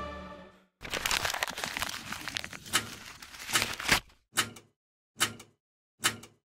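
Closing music fades out. Then comes a stretch of paper crinkling and rustling, followed by three short paper rustles, one after another about a second apart.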